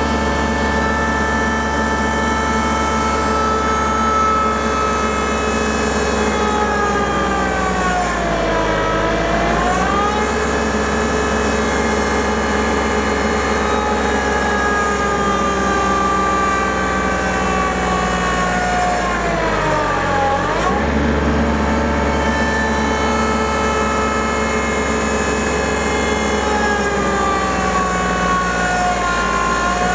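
Kubota compact tractor's diesel engine running hard as the hydrostatic tractor pulls against a chained load cell. Twice, about eight seconds in and again around twenty seconds, the engine note sags under the load and then recovers as the pull is worked back and forth.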